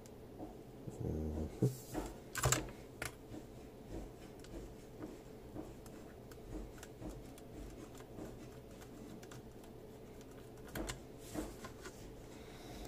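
Scattered light clicks and taps of a computer motherboard and its small metal and plastic parts being handled, with a few louder knocks about two seconds in and again near the end.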